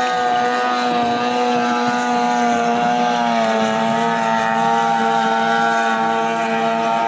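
15 hp outboard motors of racing longboats running hard: a steady, loud, high-pitched engine drone whose pitch wavers, dipping slightly about three seconds in.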